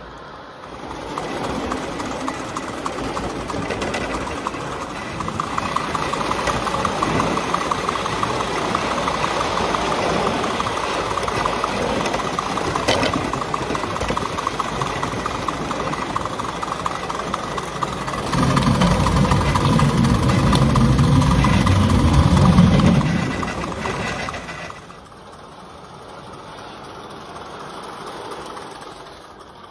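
Live-steam model Stanier Jubilee locomotive running slowly, heard close up from on board: a steady mechanical clatter of the engine and wheels on the track. It is loudest a little past the middle and drops suddenly to a much quieter running sound near the end.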